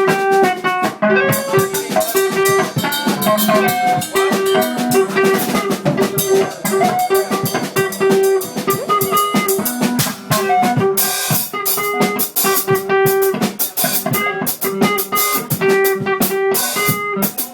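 Band playing: an electric guitar repeating one note over and over as a riff, over a drum kit with bass drum and rimshots, with cymbals washing in about eleven seconds in. The guitar is one that doesn't hold tune well.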